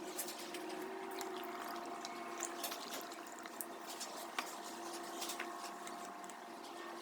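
Water running or filling, with small clicks and drips, over a steady hum.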